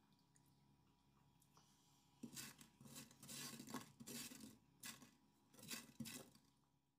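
Spatula scraping and pushing sugar-dusted chhana cubes across a dry frying pan, in a run of short scraping strokes starting about two seconds in.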